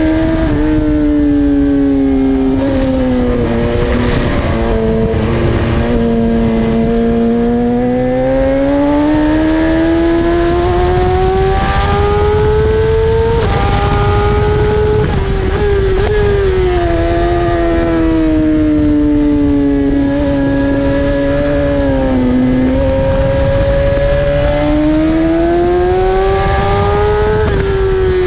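BMW S1000RR inline-four superbike engine running hard on track, its pitch climbing slowly under acceleration and dropping back several times, with a steady wind rush underneath.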